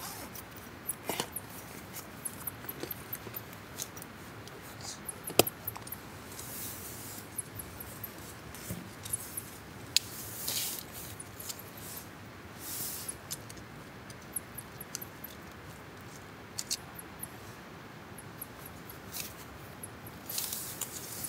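Camping gear being handled: irregular small clicks, taps and rustles over a steady background hiss, with a sharper knock about five seconds in and another about ten seconds in.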